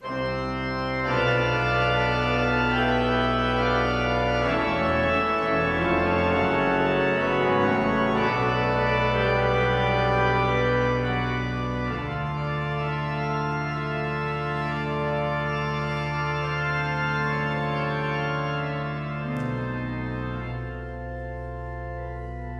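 Pipe organ playing an introduction of slow, sustained chords, the bass note shifting every few seconds, easing down a little near the end.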